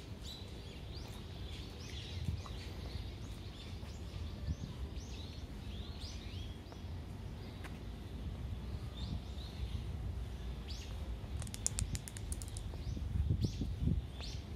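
Small birds chirping over and over in short, quick notes, above a steady low hum of distant city noise. A brief rapid run of sharp clicks comes a couple of seconds before the end.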